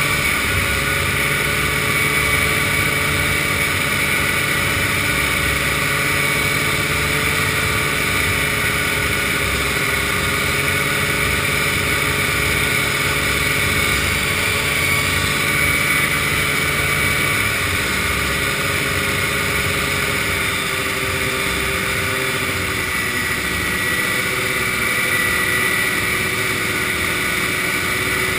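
Vintage snowmobile engine running steadily at cruising speed as the sled rides on pavement, under a constant rushing noise. The engine pitch sags a little about three-quarters of the way through, then picks up again.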